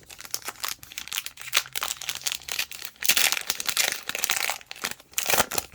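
Crinkling and tearing of a plastic trading-card pack wrapper as the pack is opened, in dense irregular rustles that are thickest about three seconds in, with another short burst near the end.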